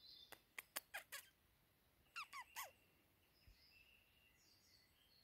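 Short, sharp lip squeaks, made to coax a fox closer: a quick run of five in the first second, then three squeaks falling in pitch about two seconds in. Faint bird song behind.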